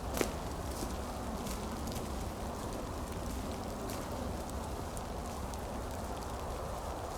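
Steady rain falling in woodland, with a few sharp drips or taps now and then.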